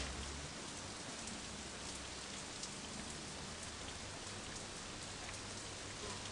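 Steady hiss and patter of falling water, like rain or water running in a tiled room, with a faint low hum underneath.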